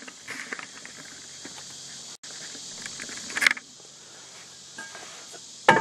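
Faint steady background hiss with a few light clicks and a short scrape a little past halfway as the camera and parts are handled; right at the end a sharp metal clank with a ringing tone as the steel brake drum is picked up against the hub.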